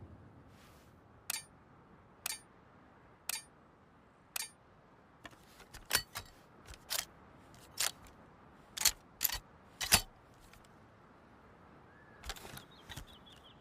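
Sharp metallic clicks and clacks of a double-barrel shotgun's action being handled after firing. First come four evenly spaced clicks about a second apart, then a quicker, irregular run of louder clacks, then a few more near the end.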